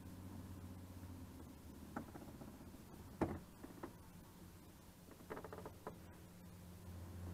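A few light knocks on a boat, the sharpest about three seconds in and a quick cluster a little after five seconds, over a faint steady low hum that grows slightly near the end.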